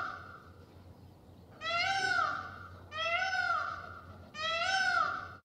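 Indian peafowl (peacock) calling repeatedly: the end of one loud call, then three more about a second and a half apart, each a rising-then-falling cry lasting about a second. The sound cuts off abruptly just before the end.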